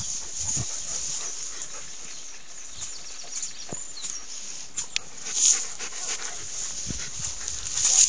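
Alaskan Malamutes and another dog playing at close range: panting and scuffling, with a couple of louder rustling bursts about five and a half seconds in and again near the end.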